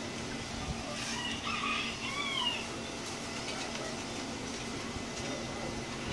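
Steady low hum over room noise, with an animal's call in the background about a second in: a few short cries that glide up and down.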